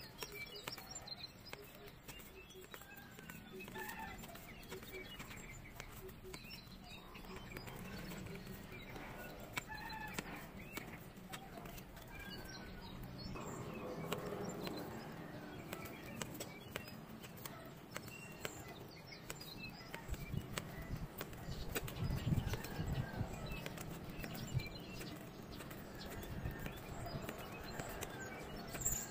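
A deck of stiff cardstock photo cards being flipped and slid one after another in the hands, a steady run of light clicks and flaps.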